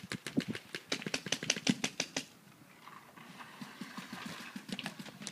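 Paintball marker firing a rapid string of shots, about seven a second, for the first two seconds; a few more single shots follow near the end.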